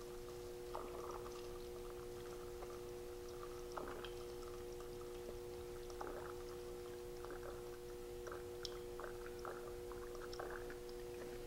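Paint reducer squeezed from a dropper-tip bottle into a plastic mixing cup of paint, trickling and splashing in short irregular spurts. A steady faint hum runs underneath.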